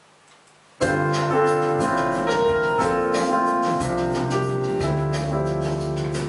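Piano music starts abruptly about a second in: a song's instrumental intro, piano melody over low sustained bass notes, with no singing yet.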